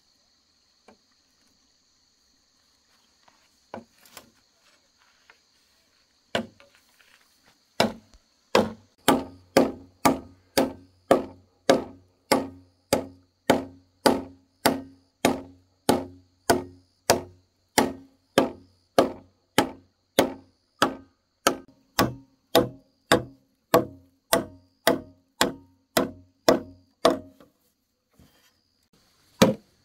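Rhythmic chopping blows on wood: a few scattered knocks, then a steady run of about thirty strokes at roughly one and a half a second, stopping shortly before the end. Insects buzz steadily at a high pitch behind.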